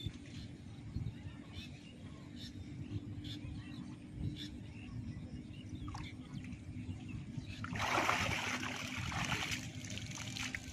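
Water splashing and sloshing as a person wades through shallow water and handles a weed-tangled fishing net, with scattered small splashes. About eight seconds in comes a louder rush of splashing water lasting a second or so as the net is hauled up.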